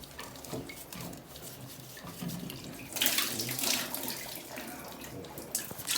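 Water running out of the pipework at a leaking indoor water meter, with small clicks and knocks of handling. The rush gets much louder and hissier about halfway through, then eases.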